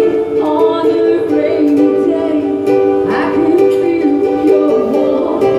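Ukulele played live, its chords ringing steadily in a regular rhythm.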